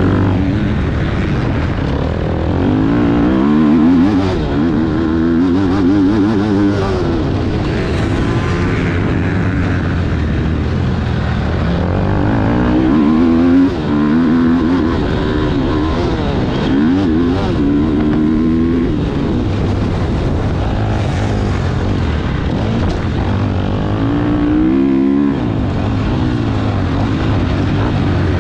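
Motocross motorcycle engine revving, its pitch climbing and dropping back again and again, over a heavy low rumble.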